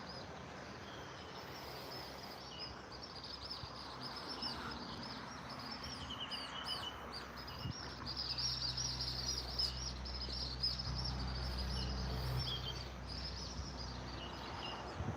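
Outdoor ambience of insects chirring steadily and high, with a few bird chirps. A low rumble swells about eight seconds in and fades out around twelve seconds.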